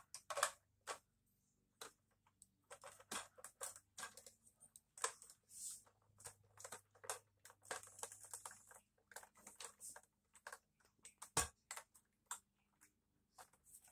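Plastic Lego pieces clicking and tapping as the top sections of a Lego airliner's fuselage are pressed back into place: irregular light clicks throughout, with one sharper click about eleven seconds in.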